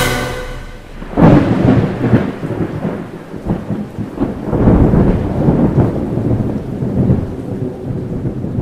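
Thunderstorm: a sudden clap of thunder about a second in, then rolling rumbles that swell and fade several times over steady rain.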